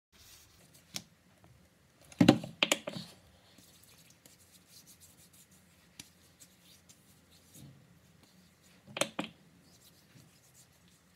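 Hands rubbing lotion into the skin, a soft rubbing, broken by a few sharp clicks and knocks: a loud cluster about two seconds in and another near nine seconds.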